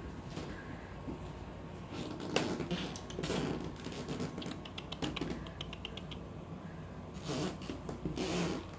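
Guinea pigs moving about their pen on fleece and hay: soft rustles and small clicks, with a quick run of clicks about halfway through and a couple of louder rustles near the end.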